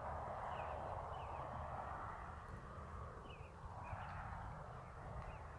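Small meltwater stream running steadily, with short bird chirps several times over it.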